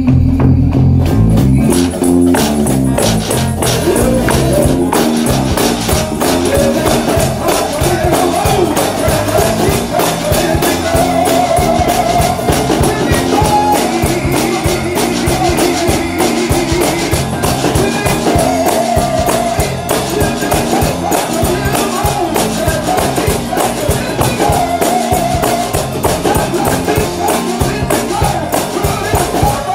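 A worship song played by a full band: drums and tambourine keep a steady beat under a melody line.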